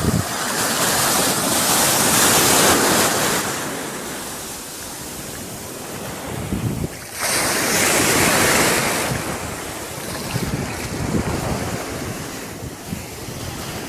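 Small sea waves breaking and washing up the sandy shore close by, in swells: one building about two seconds in and another surging suddenly about seven seconds in, each ebbing away afterwards.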